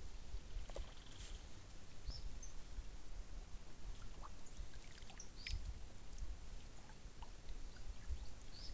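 Lagoon water lapping, with faint, scattered small splashes and ticks as piranhas bite at floating bread, over a low uneven rumble of wind on the microphone.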